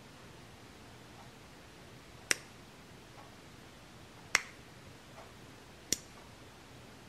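Three sharp clicks, spaced about two seconds apart, over faint steady hiss.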